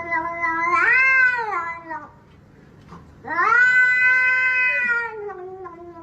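A cat yowling in two long drawn-out calls, each rising and then sliding down in pitch. The second starts about three seconds in.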